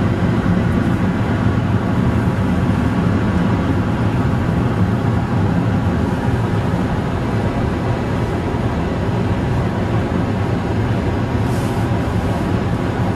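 Wind and road noise in a car cruising at highway speed: a loud, steady low rumble.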